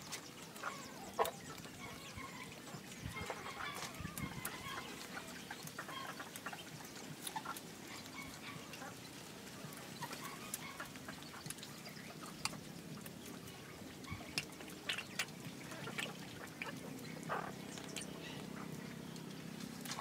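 Quiet background with scattered short animal calls and light clicks now and then.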